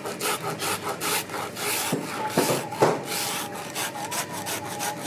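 Hand rasp scraping the bare leather sole of a worn work boot in quick repeated strokes, several a second, roughing the leather down after the old sole was removed so a new sole can be fitted.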